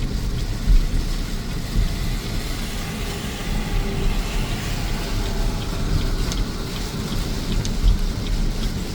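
A car driving in rain, with a steady low rumble of engine and road noise and faint scattered ticks of rain hitting the car.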